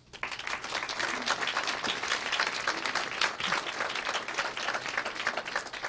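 Audience applauding: many hands clapping together, dying down near the end.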